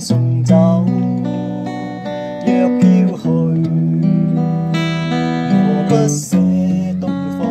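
Fender acoustic guitar played fingerstyle: chords and single notes plucked and left to ring in a slow melody.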